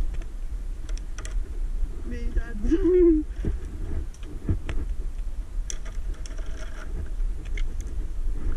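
Low rumble of wind and movement on a body-worn action camera's microphone, with scattered light clicks and knocks and a short wordless vocal sound, rising then falling in pitch, about two seconds in.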